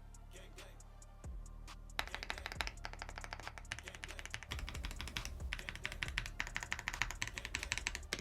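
Rapid typing on an Mchose X75 V2 mechanical keyboard, a dense run of keystroke clacks starting about two seconds in, over background music.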